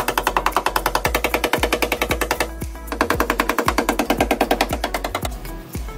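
Background music with a steady beat of about two kicks a second under a fast, evenly repeating pulse. The pulse drops out briefly about two and a half seconds in and stops a little after five seconds.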